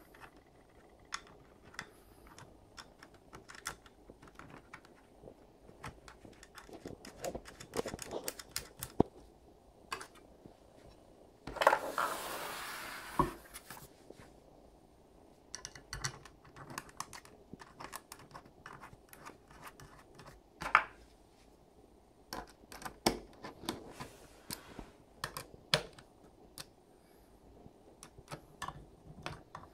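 Small plastic and metal clicks and taps from handling a display mount and driving small screws with a precision screwdriver. About twelve seconds in there is a louder scraping noise that lasts about two seconds.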